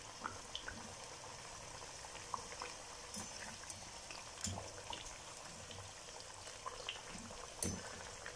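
Thick-cut potato fries frying in a steel pan of oil on their first, half-fry stage: a steady bubbling fizz with scattered small pops. A wire skimmer turns them, with one louder tap about seven and a half seconds in.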